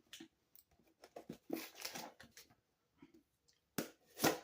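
Packing tape and a cardboard box being worked open by hand and with scissors: a string of short scrapes and rustles, with a louder rasp near the end.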